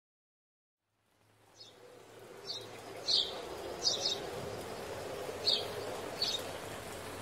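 Silence for about a second, then a dawn ambience sound effect fades in: short bird chirps roughly once a second over a steady background.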